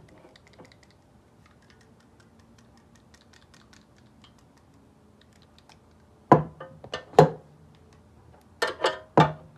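Faint light clicking as a drill fitted with a ball-type cylinder hone is handled, then five short, loud knocks in the last few seconds.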